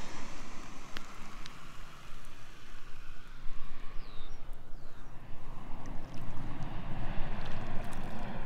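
The engine of a low-flying agricultural seeding airplane fades away over the first second after its pass, leaving wind rumbling and buffeting on the microphone.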